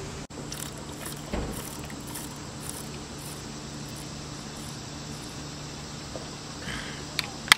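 Insects chirping in a regular, repeating pulse over a low steady hum. A single sharp click comes near the end.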